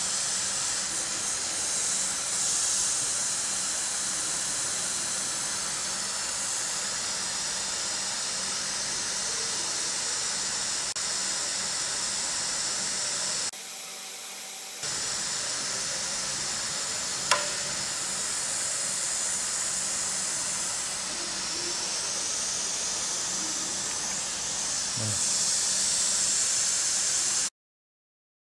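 Steady hiss of pressurised gas flowing through a refrigeration gauge manifold valve while the pressure on a low-pressure switch is set. There is a brief dip a little before halfway and a single sharp click about two-thirds through, and the hiss cuts off abruptly near the end.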